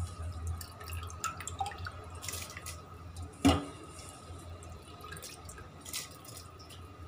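Handfuls of wet, soaked rice plopping and splashing into boiling water in an aluminium pot. The loudest splash comes about three and a half seconds in, with smaller ones around it, over a steady low hum.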